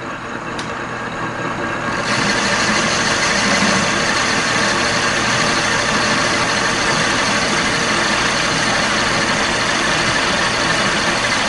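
Victor metal lathe running at a raised speed while a brazed carbide tool takes a finishing cut on a spray-welded steel shaft journal, a steady cutting hiss over the lathe's hum. About two seconds in the cutting noise grows louder and brighter, then holds steady.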